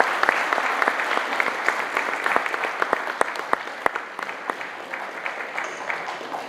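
Audience applauding, the clapping loudest at first and dying away over several seconds.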